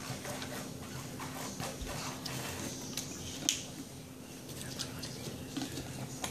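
A person drinking from a plastic water bottle: quiet, with scattered small clicks and one sharper click about three and a half seconds in.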